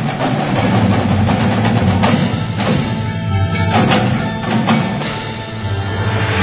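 Indoor drumline playing: marching snare, tenor and bass drums with cymbals, over a front ensemble of mallet keyboards, with several sharp accented hits in the middle.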